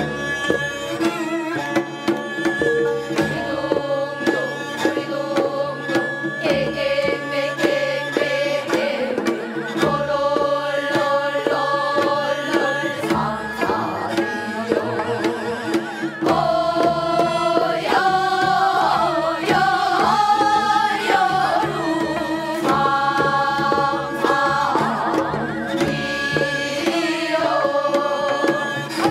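Korean traditional (gugak) singing: a voice with a wide wavering vibrato, sung over a steady hand-drum accompaniment.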